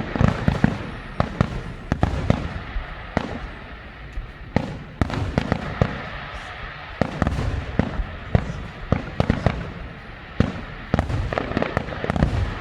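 Fireworks going off continuously: many sharp bangs at irregular intervals, some overlapping, over a steady crackle, with the booms echoing after them.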